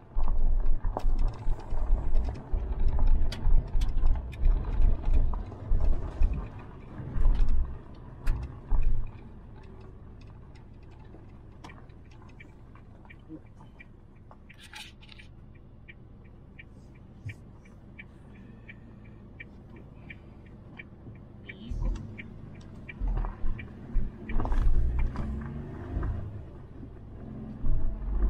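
Inside the cabin of a Suzuki Jimny JB64 on a gravel road: uneven rumbling with knocks and thumps from the tyres and suspension over the rough surface. Partway through, the rumble dies down and a steady ticking of about three clicks a second runs for several seconds, the turn signal at a junction with a paved road, before the gravel rumble returns near the end.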